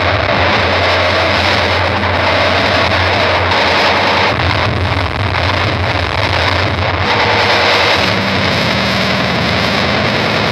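Harsh noise music: a dense, distorted wall of noise over a steady low drone, its low end shifting about eight seconds in.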